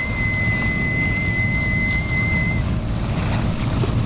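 Steady low rumble of a boat under way, with water rushing along the hull and bow wave and wind on the microphone. A thin, nearly steady high whistle runs over it and stops about two-thirds of the way through.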